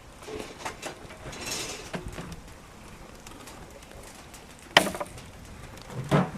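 Scattered knocks and clatter of salvaged junk being handled, with one sharp knock a little under five seconds in.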